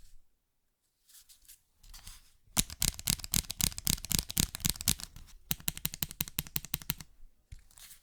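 Typing on a Rexus Daxa M61 mechanical keyboard. After some softer noise, a fast run of keystrokes starts about two and a half seconds in, followed by an even, rapid tapping of about ten strokes a second for a second and a half.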